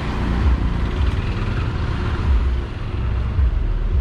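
Auto-rickshaw (tuk-tuk) engine running close by in street traffic, a steady low rumble with uneven pulses.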